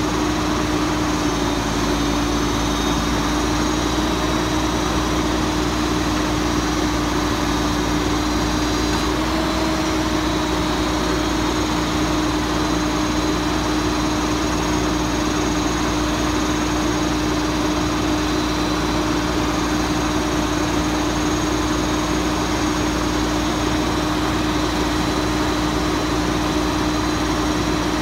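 Diesel engine of a Mack Granite garbage truck running steadily with a constant droning tone while it powers the truck's hydraulic knuckle-boom Bagster crane.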